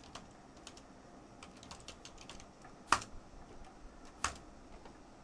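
Typing on a computer keyboard: a run of light, irregular keystrokes, with two much louder clicks about three and four seconds in.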